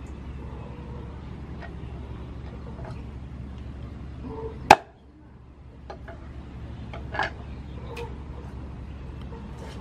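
Cleaver chopping a raw chicken on a round wooden chopping block: a few scattered knocks, with one sharp loud chop about halfway through and a smaller one a couple of seconds later, over a steady low hum.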